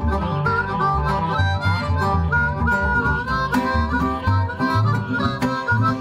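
A blues harmonica plays an instrumental break with bending notes over acoustic guitar and a plucked washtub bass keeping a low, pulsing beat.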